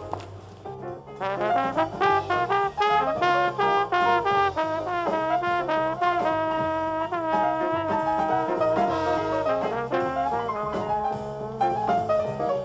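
Jazz music with a trombone playing the melody over a walking bass line: quick runs of notes, then a few longer held notes around the middle.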